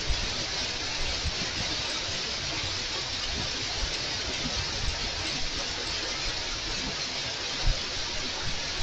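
Steady hiss of heavy rain pouring down, with a few brief low thumps, the strongest near the end.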